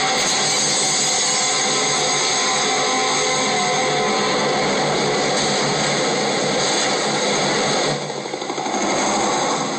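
Steady, dense rush of crashing floodwater from a tsunami film's soundtrack, played through a screen's speaker and re-recorded; it drops in level briefly near the end.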